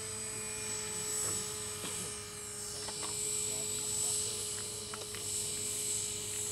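Radio-controlled model helicopter in flight: a steady motor-and-rotor whine made of several tones at once. About two seconds in, a short sweep falls in pitch in the high part, and a few faint ticks are heard.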